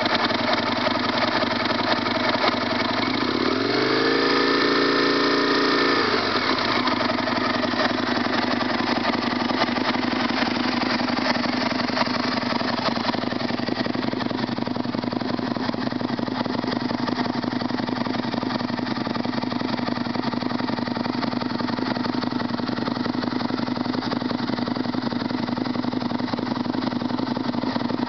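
2003 Aprilia RSV Mille's 998 cc V-twin engine, breathing through an aftermarket Arrow silencer, idling just after starting. About four seconds in the revs rise once and fall back over a couple of seconds, then it settles into a steady idle.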